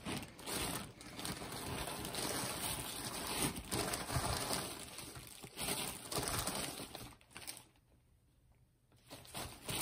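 Irregular rustling and handling noises from rummaging through spare rubber drive belts and parts, falling almost quiet for about a second near the end.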